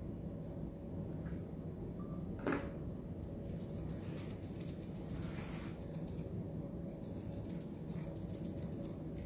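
Dog-grooming thinning shears snipping rapidly through a dog's coat in two quick runs, after a single sharp click; a steady low hum lies underneath.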